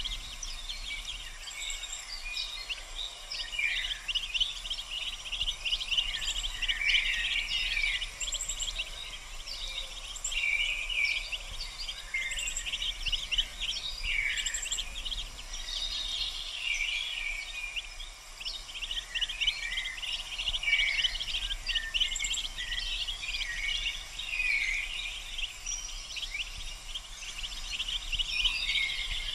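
Small birds chirping: a dense, continuous stream of rapid high chirps, with a brief lull a little past the middle.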